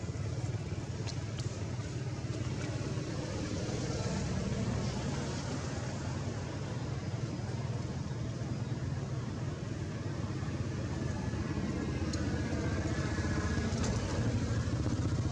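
Steady low background rumble of distant motor traffic, with a few faint light clicks.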